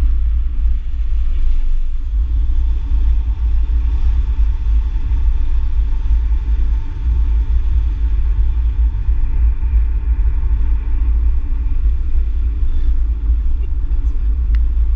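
A car running at speed, heard from inside the cabin: a steady, loud low rumble of engine and road noise, with a faint steady whine above it.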